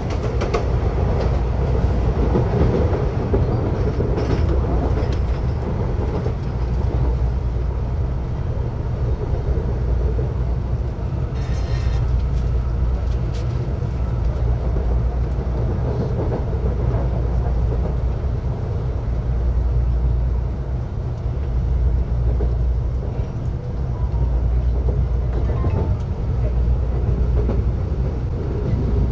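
Electric commuter train running at speed, heard from inside the carriage: a steady, loud low rumble of wheels on rail, with a few short clicks and rattles, the clearest near the middle.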